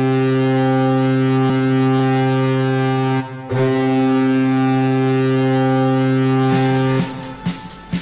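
Colorado Avalanche's 2017-18 goal horn: a low, steady horn blast that breaks off about three seconds in, then a second long blast after a brief pause, which stops about a second before the end.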